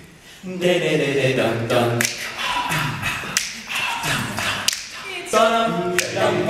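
All-male a cappella group singing close harmony with no instruments, the voices coming in together about half a second in. Sharp clicks sound over the singing about every second and a half.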